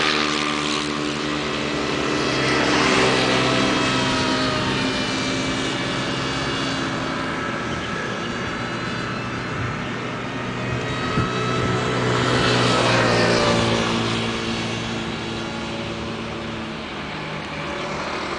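Radio-controlled model F-22 flying circuits overhead, its motor giving a steady whine. The whine swells and its pitch slides as the plane passes closest, about 3 seconds in and again around 13 seconds.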